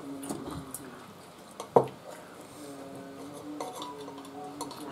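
Knife and fork scraping and clinking on a ceramic dinner plate while food is cut, with one sharp, loud clink about two seconds in.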